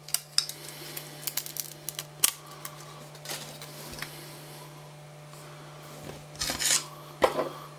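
A knife blade scraping and a black tape layer peeling off the bottom of a plastic 3D-printed part: a run of small scrapes and clicks over the first few seconds. Then quieter handling of the part, with two louder rustling knocks near the end. A faint low hum runs underneath.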